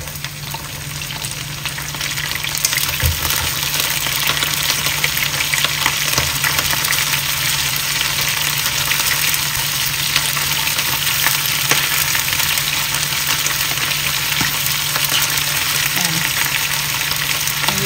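Pieces of blue swimmer crab frying in hot oil in a nonstick wok, with a steady sizzle and crackle that grows louder over the first few seconds. The spatula turns them with a few light knocks.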